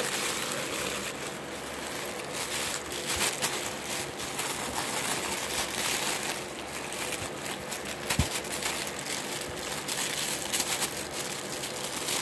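Pink tissue paper rustling and crinkling in irregular handfuls as a child's hands crumple it and dig through a cardboard box.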